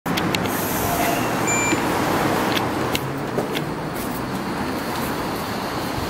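Steady road traffic noise, with a few sharp clicks and one short high beep about a second and a half in.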